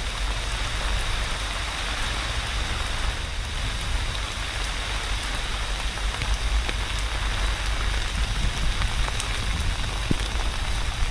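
Heavy rain pouring down steadily, a dense hiss of drops, with a low rumble underneath.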